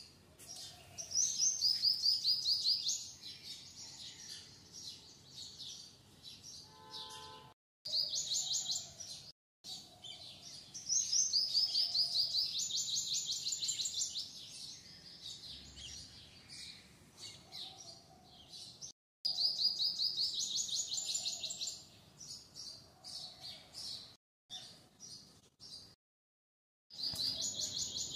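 Songbird singing in rapid trills of high chirps. The trills come in bursts of two to three seconds, repeated several times, with softer chirping between.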